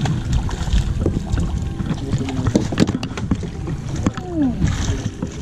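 A hooked fish splashing at the surface beside a small wooden boat as it is brought in, with short knocks on the hull and wind on the microphone.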